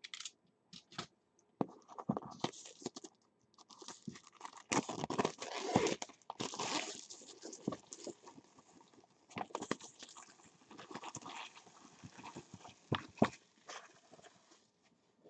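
Plastic shrink wrap being peeled and torn off a cardboard box, crinkling in irregular bursts, loudest about five to seven seconds in, with a sharp tap near the end.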